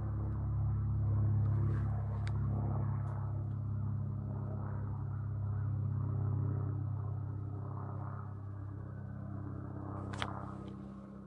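A steady low droning hum made of several held low pitches, with a few faint clicks about two and three seconds in and again near the end.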